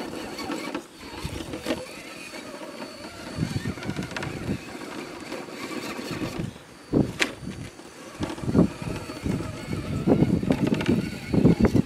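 RC rock crawler's electric drive motor whining faintly as the truck crawls over rock. Its tyres and chassis knock and crunch against the stone in irregular bursts that get louder and busier toward the end.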